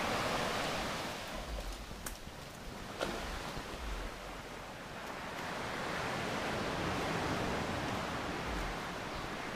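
A steady rushing noise that eases off and then swells again, with a couple of faint sharp snaps about two and three seconds in.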